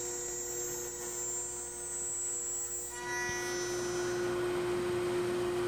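CNC router and its dust collection running: a steady electric hum with a faint high whine. About three seconds in, a higher whine and more hiss come in, and the sound gets slightly louder.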